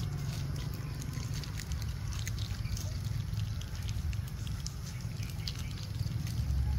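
Scattered light crackles of plastic snack wrappers handled by feeding macaques, over a steady low rumble.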